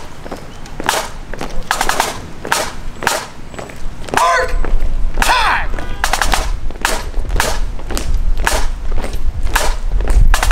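Drum beating a steady marching cadence of sharp strokes, about two a second, keeping time for a parade. From about four seconds in, wind rumbles on the microphone beneath the beat.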